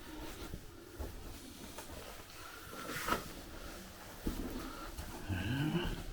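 Footsteps and scattered knocks in an underground tunnel, irregular rather than steady, with a short rising tone near the end.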